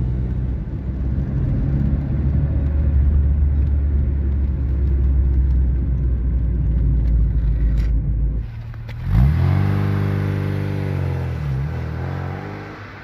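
Ford Sierra's 2.0-litre Pinto four-cylinder engine and road noise heard from inside the cabin while driving, a steady low drone. About two-thirds of the way through, the sound changes to the car heard from outside, its engine note rising sharply as it accelerates, then slowly falling.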